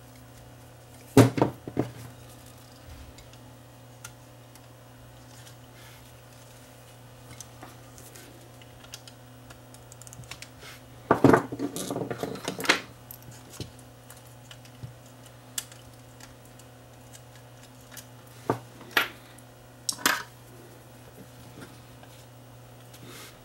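Small metal tools clinking and clattering on a workbench in short bursts, loudest about a second in and again around eleven to thirteen seconds in, with a few single clicks later, over a steady low hum.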